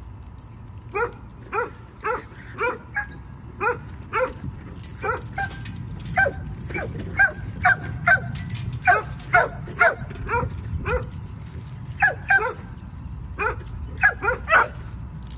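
A dog barking over and over in short, sharp yips, about two a second, with a couple of brief pauses.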